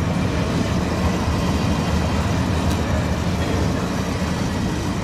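Steady low rumble of moving vehicles, with a faint click about three seconds in.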